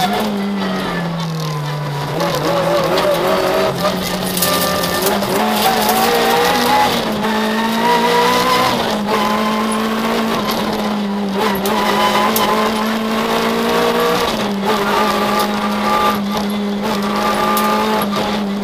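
Citroën Saxo VTS rally car's four-cylinder engine heard from inside the cabin, running hard at high revs; the pitch falls over the first couple of seconds as it slows, then holds high for most of the run.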